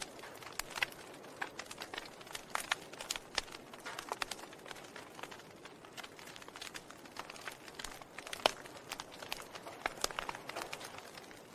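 Wood fire burning in a fireplace, crackling: irregular sharp pops and snaps over a soft steady hiss, with one louder pop about eight and a half seconds in.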